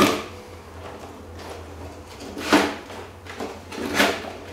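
Cardboard box being handled and its flap and lid opened: two short cardboard sounds, about two and a half seconds in and again about four seconds in, with faint rustling between.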